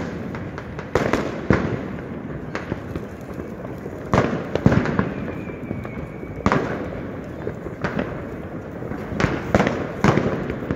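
Fireworks and firecrackers going off all around: irregular sharp bangs and crackles, each ringing on in echo, with a high thin whistle about halfway through.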